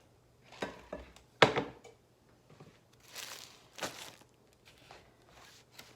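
Handling noises: a sharp knock about one and a half seconds in, with several softer clicks, taps and brief rustling swishes.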